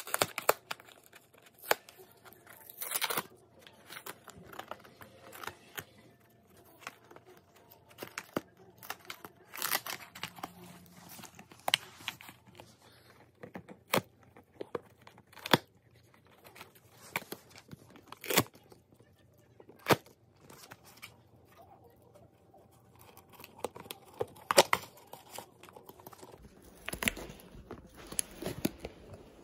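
A Corgi/Chihuahua mix dog tearing a USPS Priority Mail cardboard box apart with its teeth: irregular ripping and crunching of cardboard, short rips every second or so with a few longer tears between pauses.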